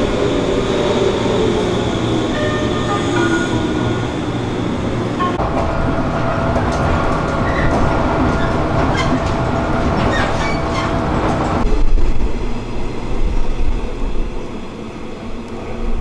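Electric commuter train pulling into a station, its motor whine falling in pitch as it slows. Then the steady rumble heard riding inside a moving train, with wheels clicking over rail joints. Near the end, quieter outdoor platform sound.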